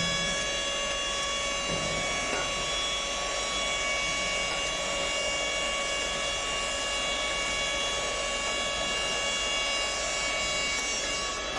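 Aluminium profile CNC bending machine running, its drive giving a steady high whine over a mechanical hum.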